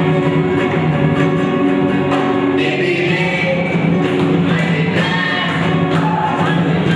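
A group of voices singing a song together, with a rhythmic instrumental accompaniment.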